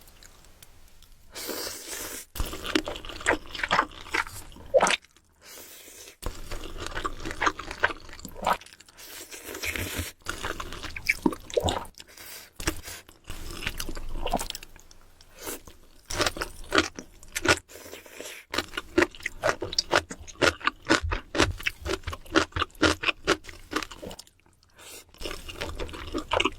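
A person eating crunchy food close to the microphone: repeated crunching bites and chewing, in quick runs of sharp crackles with short pauses between them.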